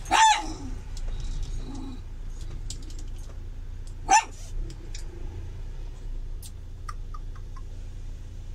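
A dog giving two short, high yips about four seconds apart.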